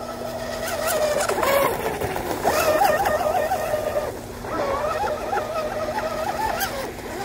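Pro Boat UL-19 RC hydroplane's brushless electric motor whining at speed on the water, fitted with an Octura 642 low-rake propeller. The pitch wavers up and down as the throttle and turns change, and the sound dips briefly about four seconds in.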